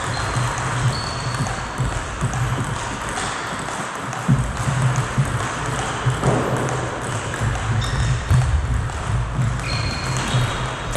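Table tennis rally: the ball clicking back and forth off the bats and the table in quick succession.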